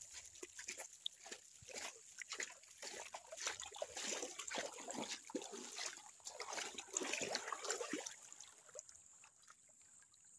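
Shallow river water splashing and trickling in irregular bursts as a small caught fish is put into a mesh keep net standing in the stream. The splashing thins out after about eight seconds.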